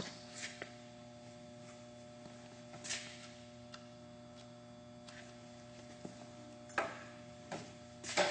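Faint steady electrical hum from a Tailift TPR 1100 radial arm drill standing under power, with a few short clicks and knocks, the loudest about three seconds in and again near the end.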